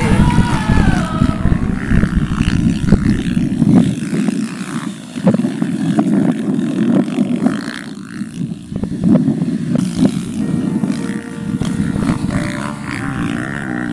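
Enduro dirt bike engines running and revving on a dirt track, the engine note rising and falling, with a few sharp clicks.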